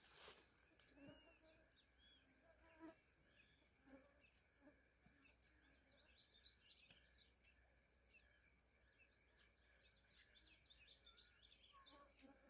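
Near silence: a faint, steady, high-pitched insect chorus, with a few soft bird chirps scattered through it.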